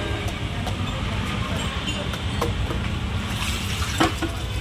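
Busy roadside ambience: a steady low rumble of traffic with scattered clicks and knocks, and one sharper knock about four seconds in.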